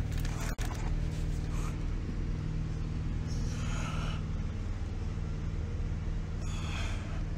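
A steady low hum, with a person breathing heavily twice, in the middle and near the end. The sound cuts out briefly about half a second in.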